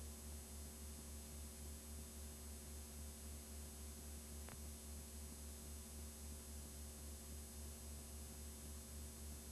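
Steady low hum with a hiss over it from a blank stretch of home videotape, and a single faint click about halfway through.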